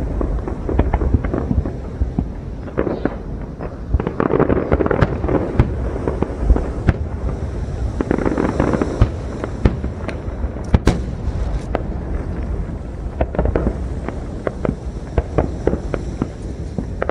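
Aerial fireworks going off in rapid succession: shell bursts and dense crackling pops, many sharp cracks close together. The crackle is thickest about four and eight seconds in.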